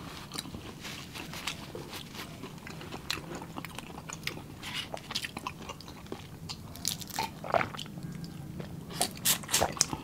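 Close-miked eating sounds: chewing and crunching of shrimp and crab, with crackling of shrimp shells being peeled. Scattered clicks throughout, coming thicker near the end.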